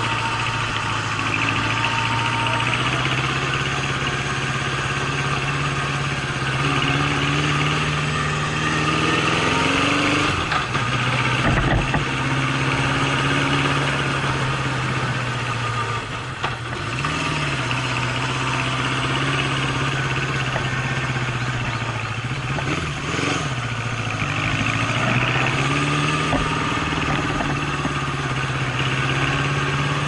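Honda CB750's inline-four engine running as the motorcycle rides at low speed. The engine note rises and falls with the throttle and drops briefly twice a little past halfway, as the rider backs off.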